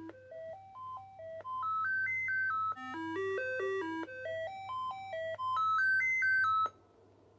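Commodore 64 Dead Test cartridge's sound test played by an ARMSID replacement SID chip: short electronic beeps stepping up and down in pitch, about four notes a second, in repeating rising-and-falling runs. It cuts off suddenly about a second before the end, and the chip has passed the test.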